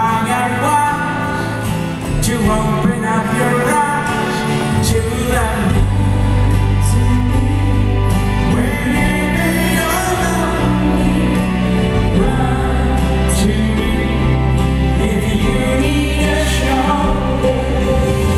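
Live band playing a soft-rock ballad with female backing singers singing sustained harmony lines. The bass and drums come in fuller about five seconds in.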